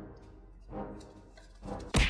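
Background music with a beat about once a second, and a sudden loud hit near the end.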